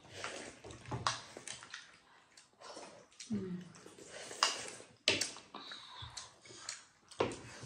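Eating by hand: fingers squishing and mixing rice with chicken curry on plates, with chewing and lip smacks. The noises are irregular, with several sharp smacks among them.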